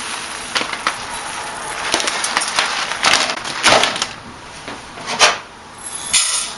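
Dry long-grain brown rice pouring from a plastic bag into a glass measuring cup with a grainy hiss, followed by several sharp knocks and clatters as the bag and cup are handled. About six seconds in, the rice is tipped into a stainless steel pot with a short rattling rush.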